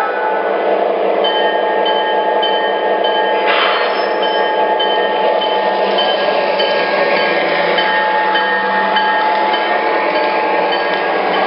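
O-gauge GP-35 model diesel locomotives and stack cars running past on three-rail track with a steady rolling rumble, and a high clink repeating about twice a second.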